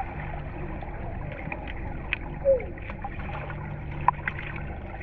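Underwater sound in a swimming pool: a muffled, steady low rumble of water with scattered clicks and bubbling from swimmers moving and diving. A brief falling tone comes about two and a half seconds in.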